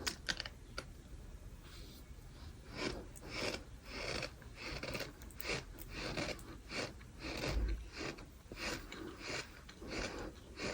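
Close-miked chewing of gritty bird sand: soft, crunchy chews repeating about twice a second, starting about two seconds in after a few faint clicks.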